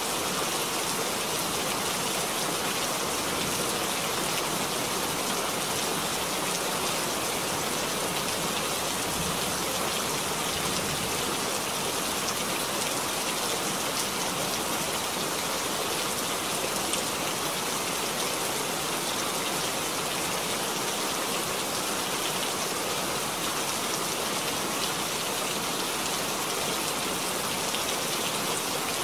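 Steady rain falling into a puddle and on leaves: an even hiss of many drops with occasional sharper drips.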